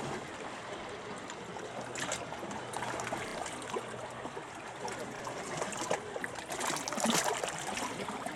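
Sea water lapping and splashing in a steady wash, with louder splashes about two seconds in and again near the end.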